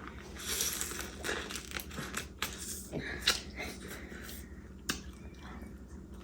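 Crinkling and tearing as crab shells are cracked and peeled by hand, with a few sharp cracks.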